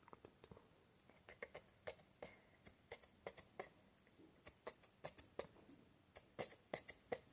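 Close-miked ASMR mouth sounds: soft, irregular clicks and smacks of the tongue and lips, a few dozen spread through, a little louder and closer together near the end.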